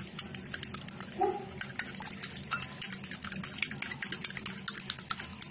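A utensil beating raw eggs in a glass bowl: rapid clicks of metal against glass, several a second, with the liquid egg swishing.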